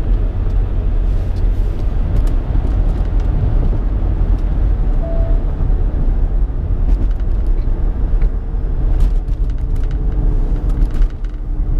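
Steady low rumble of engine and road noise heard inside a moving car's cabin, with a few faint clicks toward the end.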